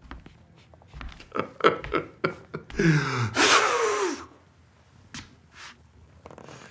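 A few short knocks, then about three seconds in a man's falling groan running into a loud, breathy exhale lasting about a second.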